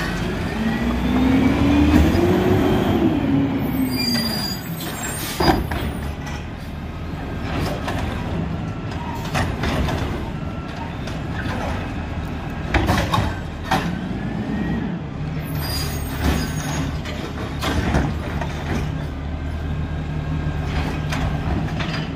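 Peterbilt 320 garbage truck's diesel engine idling, revving up and back down twice as the Wayne Curbtender side-loader's hydraulic arm lifts and dumps trash carts. Several sharp bangs come from the carts hitting the hopper and being set down, with a couple of short air-brake hisses.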